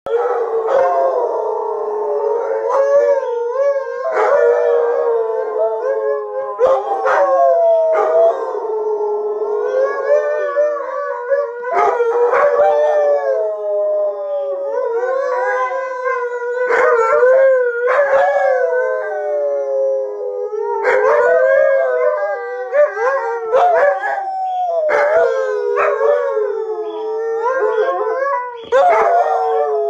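Three Alaskan Malamutes howling together in an overlapping chorus, their howls gliding up and down in pitch, with short sharp sounds breaking in every few seconds.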